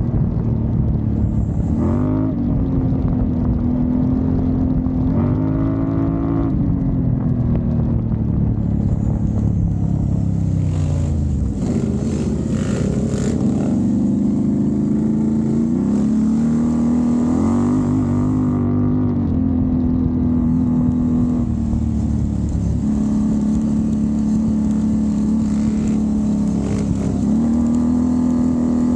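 Can-Am Renegade ATV's V-twin engine running under way on a trail, its pitch falling and rising several times as the throttle is eased and opened again, with one deep drop and climb back up midway. A few sharp knocks sound around the middle.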